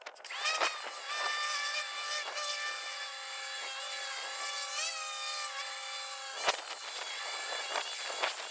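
Pressure washer cleaning dirty concrete: a high, steady machine whine that rises in pitch as it starts, then holds over the hiss of the spray. The whine stops about six and a half seconds in while the hiss goes on.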